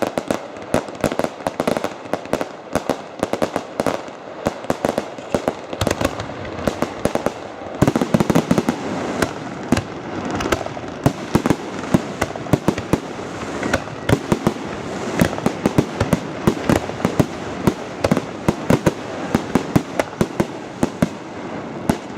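Professional fireworks display: a dense, irregular run of sharp bangs and shell bursts, several a second, with a thicker continuous crackle filling in from about eight seconds in.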